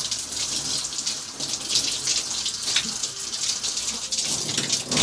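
Bathroom tap running steadily into the sink, water splashing.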